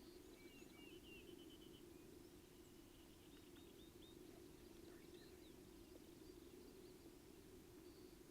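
Near silence: quiet outdoor ambience with small birds chirping faintly in quick runs of short notes, with a steady low hum beneath.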